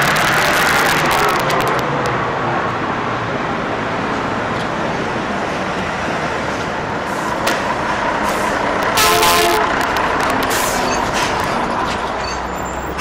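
Outdoor street noise of a procession walking along a road, a steady rushing haze with scattered clicks. About nine seconds in there is a short horn-like toot.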